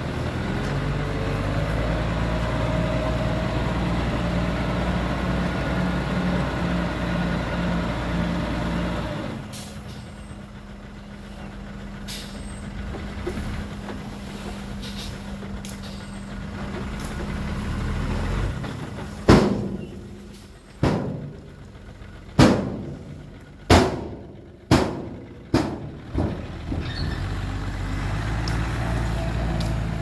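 Heavy diesel construction machinery running steadily, then dropping quieter about nine seconds in. Later comes a run of about six loud bangs, each ringing off quickly, a second or so apart, before the engine sound rises again.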